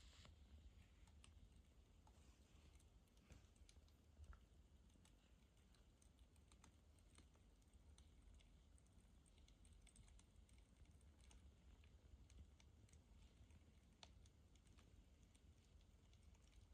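Near silence, with faint, irregular light clicks and taps scattered throughout.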